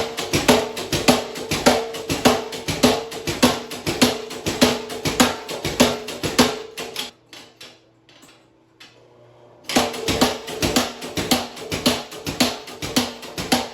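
Mechanical power hammer striking hot steel through kiss blocks in a fast, even rhythm of about four to five blows a second, with a metallic ring. The blows stop about seven seconds in, leaving only the motor's hum, then start again near ten seconds.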